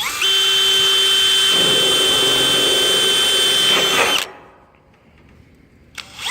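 Electric drill with a 1/8-inch bit drilling a rivet hole through a sheet-metal gutter: the motor whine spins up, runs steadily, and the bit grinds into the metal from about a second and a half in. It stops about four seconds in and winds down. A click near the end is followed by the drill starting again.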